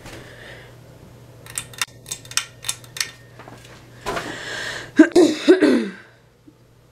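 A run of sharp clicks, then a person coughing a few times, over a steady low hum.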